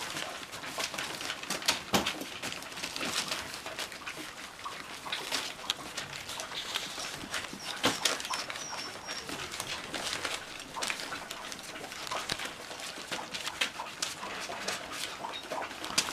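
Cocker spaniel puppies eating together from a shared metal feeding bowl: a busy, irregular crackle of lapping and chewing, paws scuffling on newspaper and knocking the bowl, with a few sharper clicks.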